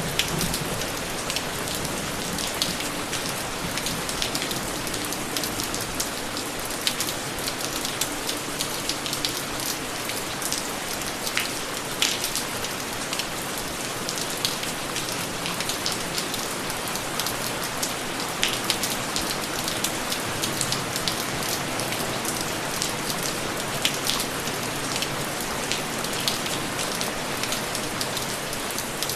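Steady rain falling, an even hiss broken by many sharp individual drop hits.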